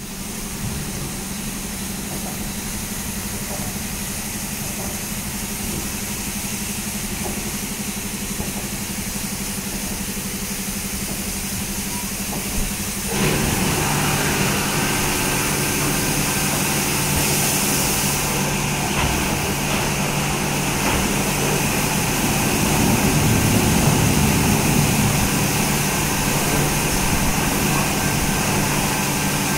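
Smart Wash automatic rollover car wash running, a steady machine hum of motors and pumps with spinning brushes and spraying water. About thirteen seconds in it steps up louder, with more motor tones and a stronger hiss.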